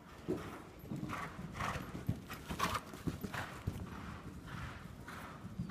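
Hoofbeats of a horse circling on a lunge line over sand footing: a steady beat of a little under two strides a second.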